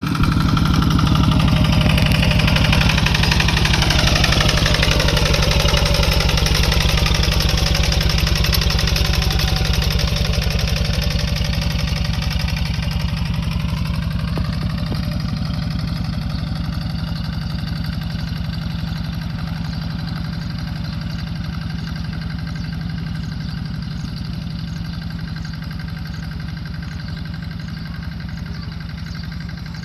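Tractor engine running steadily while ploughing. It slowly grows fainter as the machine moves away.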